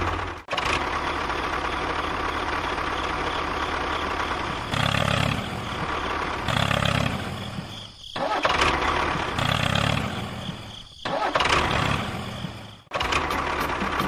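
Tractor engine running with a low chug that swells and fades, cut off abruptly and resumed several times.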